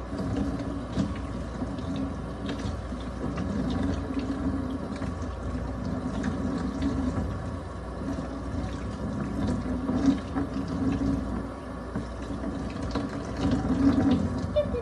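Water running steadily, with a few louder splashy moments about ten seconds in and near the end.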